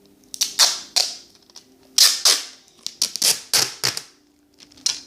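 Crinkling of a plastic Ziploc bag and duct tape being folded and pressed by hand: about ten sharp, crackly rustles in quick succession, the loudest about two seconds in.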